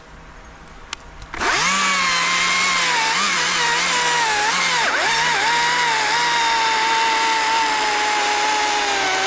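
Stihl MSA 190 T battery top-handle chainsaw whirring up to speed about a second and a half in and cutting into a seasoned dead stump: a steady electric whine with a couple of brief dips as the chain bites, its pitch sagging only slightly under load, without sounding strained.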